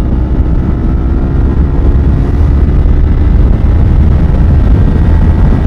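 Kawasaki Z300 parallel-twin engine running at a steady speed on the road, heard from the rider's helmet camera under heavy wind and road rumble.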